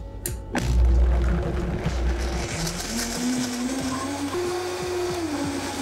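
High-speed countertop blender switched on with a click, grinding frozen pineapple chunks, carrot and oat milk. A heavy low churning comes first, then the motor's whine rises in pitch in steps, and it starts to fall near the end.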